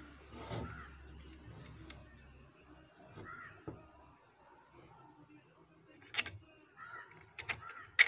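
Small aluminium trigger parts of a homemade crossbow clicking and tapping as they are worked by hand into the slot of the wooden stock: scattered sharp clicks, coming closer together near the end, where the loudest one falls.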